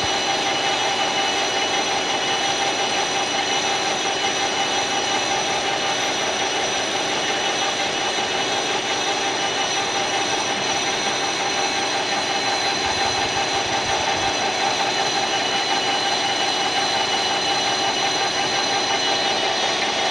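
Large engine lathe with a ball-turning attachment running and cutting a sphere on a metal workpiece: a steady machine drone with several constant high whines.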